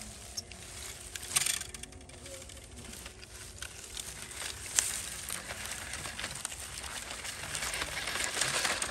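Dry leaves and twigs crackling and snapping under the wheels of a toy off-road truck, with sharp snaps about a second and a half in and again near five seconds; the crackling grows louder near the end.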